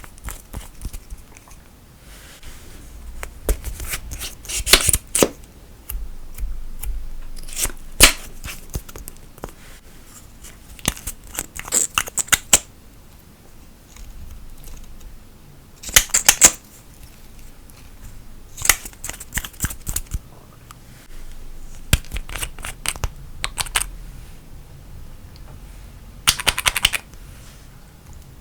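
Slime being worked by hand, with clusters of sharp sticky clicks, pops and crackles coming in separate bursts every few seconds.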